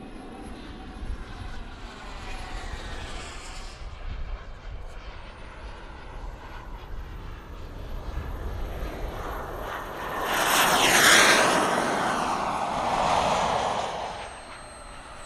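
Turbine engines of a large-scale radio-controlled F/A-18 Hornet jet spooling up, with a high whine that rises about five seconds in. Then comes a loud rush as the jet races past on its takeoff run, falling in pitch, and it fades as the jet climbs away.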